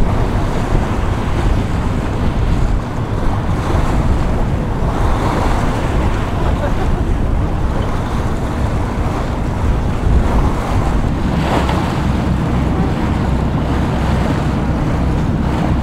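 Wind buffeting the microphone with a heavy, steady rumble, over the rush and splash of open water.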